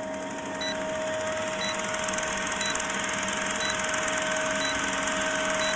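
Vintage film-countdown sound effect: a steady hiss with a constant hum tone, and a short high beep about once a second as the numbers count down.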